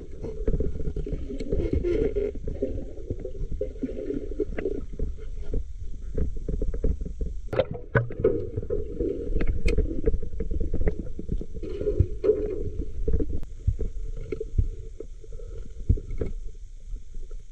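Muffled underwater rumbling and gurgling of water around a submerged camera, with a few sharp clicks or knocks, two of them standing out near the middle.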